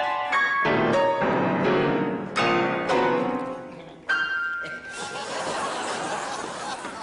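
Grand piano: about five loud chords struck one after another at uneven intervals, each ringing on and fading.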